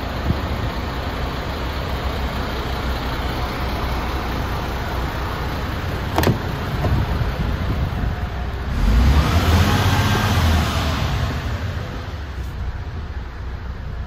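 MAN TGX 26.440's 440 bhp Euro 5 diesel engine idling steadily with a low rumble. There is a sharp click about six seconds in, and the sound grows louder for about two seconds a little after the middle.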